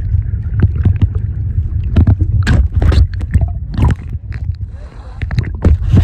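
Water sloshing and splashing against a camera's microphone as it is carried through water on a swim through a flooded cave passage: a heavy low rumble with many sharp splashes and knocks.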